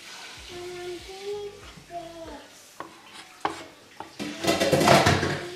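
Chef's knife slicing a tomato on a wooden chopping board, the blade tapping the board sharply twice around the middle, over the steady sizzle of onions frying in a pan. About four seconds in comes a loud hissing burst lasting just over a second.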